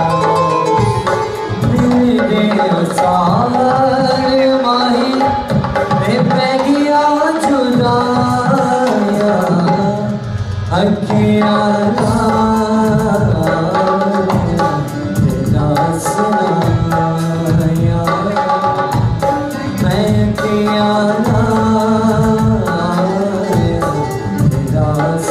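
Live Punjabi folk song: a dholak drummed in a steady rhythm under a harmonium's held chords, with a man singing a melody that glides between notes.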